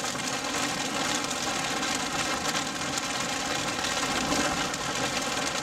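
Steady car cabin noise while driving through a thunderstorm's rain: engine and road noise mixed with rain on the windshield.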